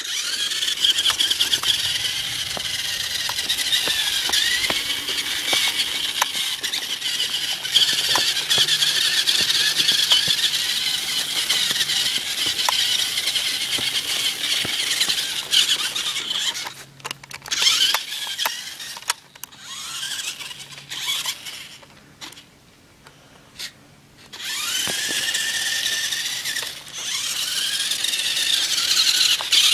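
Toy RC rock-crawler truck's electric motor and gearbox whining high, the pitch rising and falling with the throttle. It breaks up and goes quiet for a couple of seconds about three quarters of the way through, then starts again.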